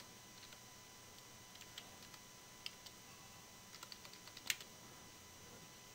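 Faint, slow typing on a computer keyboard: scattered single keystrokes in small clusters, with one louder click about four and a half seconds in.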